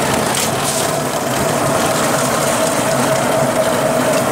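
Engine and body rattle of a small open-sided passenger vehicle under way, heard from inside, with a steady whine that grows stronger about two seconds in.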